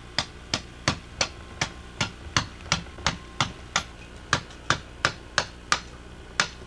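Cleaver chopping at the edges of a hard block of Osage orange wood: a steady run of short, sharp strikes, about three a second, with a brief pause near the end.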